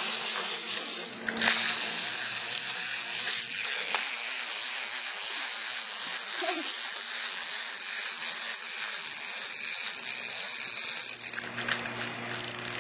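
Clockwork mechanisms of wind-up walking toy animals whirring steadily as they run, a fine high buzzing whir that stops about eleven seconds in.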